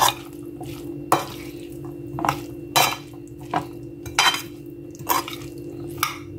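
A spoon clinking and scraping against a bowl while stirring a chunky corn salad, in short strokes about every half-second to a second.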